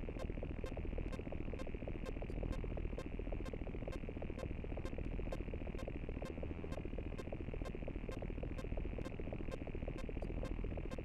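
Digital glitch sound effect: a dense electronic crackle with sharp clicks at an even pace of about two to three a second.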